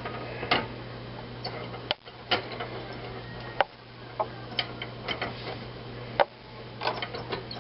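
Irregular light clicks and taps of hands folding and handling wraps on a kitchen counter, over a steady low hum.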